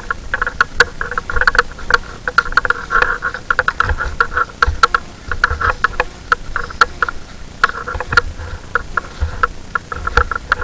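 A loud, stuttering animal call chorus pulsing many times a second in clusters, over low thumps of footsteps on the forest trail.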